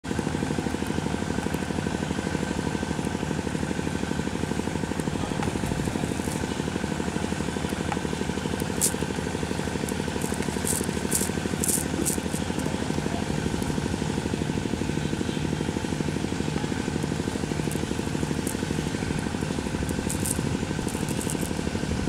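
A small engine running steadily with a fast, even pulse. A few sharp clicks come about halfway through and again near the end.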